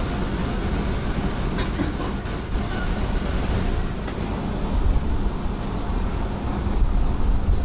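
City street ambience: a steady low rumble of traffic with a faint hiss above it.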